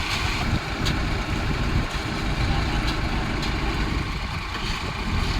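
Kobelco excavator's diesel engine running steadily, with a few faint clicks.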